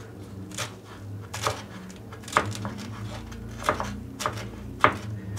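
Knife chopping fresh coriander on a wooden cutting board: a series of separate, sharp chops at an uneven pace, roughly one every half second to a second.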